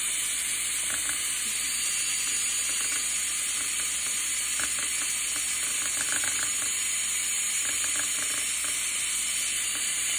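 A cordless DeWalt drill runs at full speed, spinning a wooden spoon that whips egg whites in a glass bowl. It makes a steady hissing whine, with scattered light ticks and rattles.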